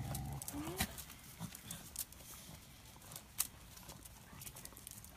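Small dogs moving about: a brief rising whine about half a second in, then scattered light clicks and taps, the sharpest about three and a half seconds in.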